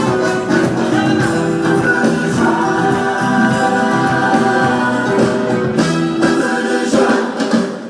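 Choir singing a gospel-style Christian song with instrumental accompaniment.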